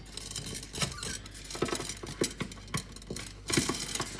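Metal chain links clinking and rattling in irregular knocks as the chain is fed down a narrow gap.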